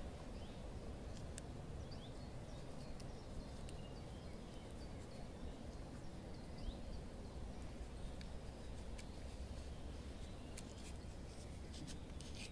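Quiet outdoor background with faint, scattered bird chirps and a few light clicks.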